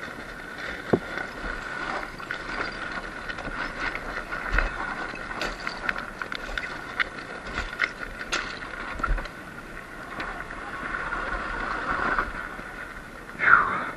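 Sur-Ron X Light Bee electric dirt bike's motor whining steadily, with rattles and knocks from the bike going over rough rocky ground. Near the end the whine drops in pitch.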